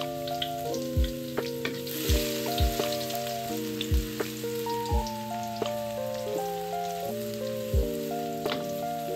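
Lo-fi background music with soft sustained chords and a steady beat about once a second, over onions sizzling in hot cooking oil.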